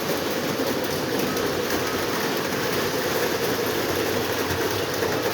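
Lionel O27 model trains running on their track, a steady hum of the electric motors with the rumble of wheels on the rails.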